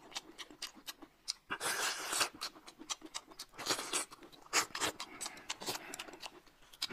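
Close-miked eating sounds: chewing and crunching with many short, sharp mouth clicks and a few louder bursts, about two seconds in and again around four seconds in.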